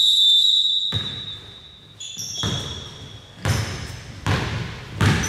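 A long, steady, high-pitched referee's whistle blast for about two seconds, then a basketball bouncing on the court floor about five times, roughly a second apart.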